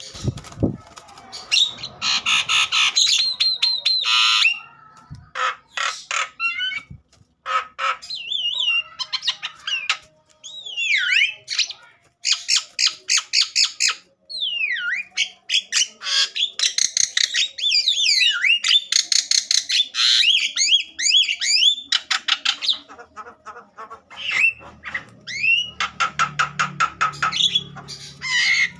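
Javan myna calling in an agitated, aggressive mood. It gives bursts of a few seconds each: rapid harsh rasping chatter mixed with sharp whistles that swoop down and back up.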